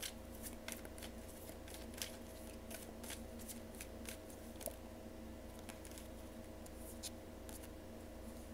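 A tarot deck being shuffled by hand: soft, irregular card clicks and flicks, more of them in the first few seconds, over a faint steady hum.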